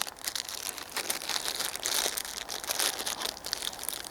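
Small plastic bag crinkling as it is handled and rummaged through: a dense run of irregular crackles and rustles.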